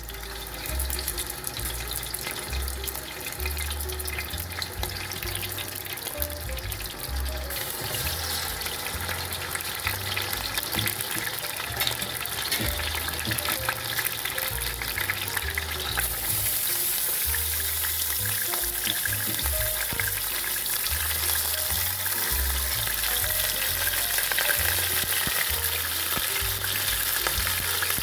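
Boiled chicken thighs frying in hot oil in a pan, with a steady sizzle that grows stronger about a third of the way in and again near the middle. Background music with a pulsing bass plays under it.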